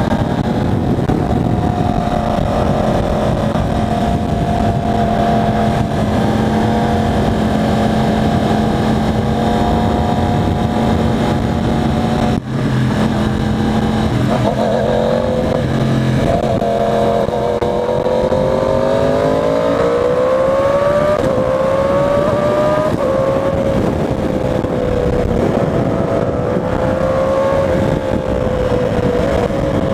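Yamaha R1 motorcycle's crossplane inline-four engine under way, holding a steady note at first. About halfway through, its pitch climbs as the bike accelerates, then it settles back to a steady cruise.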